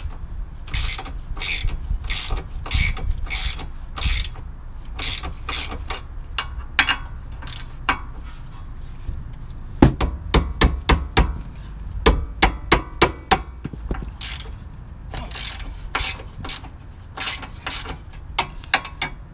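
Hand ratchet wrench clicking in repeated short strokes, about two a second, as it loosens the nuts and bolt holding the ball joint to a car's front lower control arm. About ten seconds in comes a run of sharper, faster clicks, then the slower strokes return.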